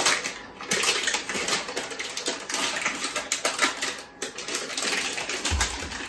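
Electric hob heating a pan, making a dense crackling and ticking noise, with a low thump near the end.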